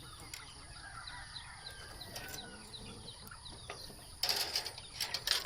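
Faint, short, high chirps repeating in the background, like small birds, then about four seconds in a few loud rustling bursts.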